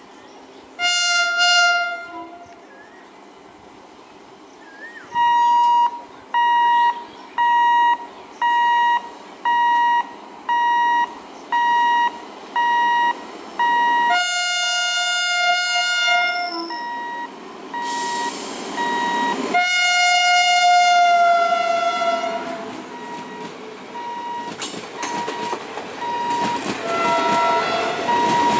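Electric locomotive air horn (a WAP-5) sounding four blasts on one steady note: a short one about a second in, a long one midway, another about three seconds long soon after, and a short toot near the end. Electronic warning beeps repeat a little faster than once a second from about five seconds in, and near the end the rumble of the train running past swells.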